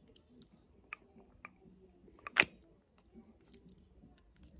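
Plastic push pop candy being handled in the fingers: a few small, sharp clicks, the loudest about two and a half seconds in.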